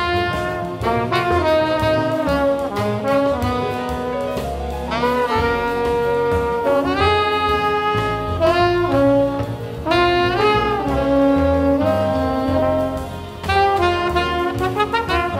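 Live jazz: tenor saxophone and trumpet play a flowing melody in phrases over a rhythm section of double bass and drums, with a brief dip in the music a little after the middle.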